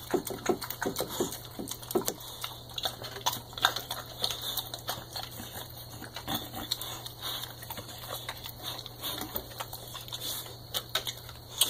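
Boxer dog eating wet meat, gravy and cheese from a plastic plate: irregular smacking, chewing and licking clicks, densest in the first few seconds.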